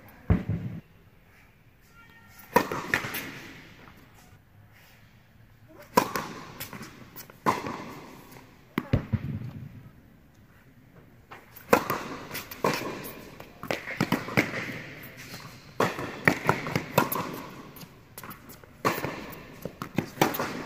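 Tennis balls struck by rackets and bouncing on an indoor hard court: sharp pops a second or two apart in an irregular rally rhythm, each echoing around the hall.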